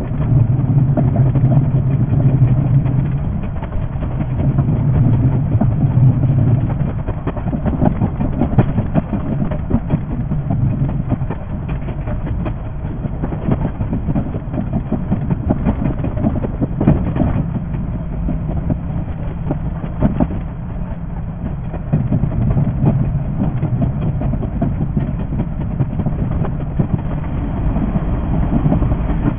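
JR 381 series electric limited express train running: a steady rumble with dense clicking from the wheels on the rails, and a low hum that swells near the start and again later on.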